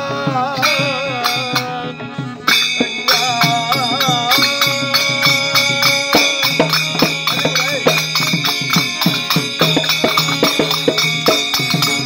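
Devotional bhajan singing by a group of men, with a lead voice, accompanied by small brass hand cymbals (jalra) struck in a steady beat and a harmonium playing held notes.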